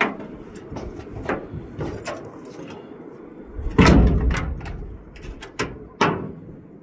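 A series of sharp knocks and scrapes of hard objects, with a louder, longer scrape about four seconds in and another sharp knock about two seconds later.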